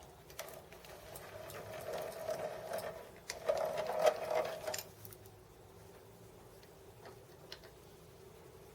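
Small machine tool's motor running while a boring bar takes a light cut, opening out a bore in a metal part for a bronze bushing. The cutting noise swells for the first few seconds and stops about five seconds in, leaving the machine running more quietly with a few light ticks.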